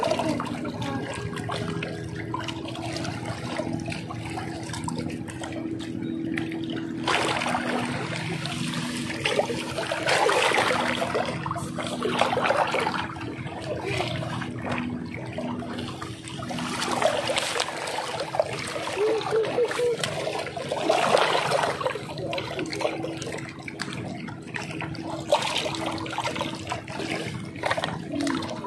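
Sea water lapping and trickling among shore rocks, swelling and falling in surges every few seconds, over a faint steady low hum.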